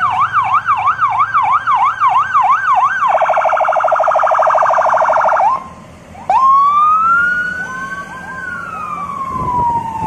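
Electronic police-car siren cycling through its tones. It yelps quickly up and down for about three seconds, then switches to a much faster warble that breaks off about halfway. After that it sounds a long wail that climbs and then slowly falls.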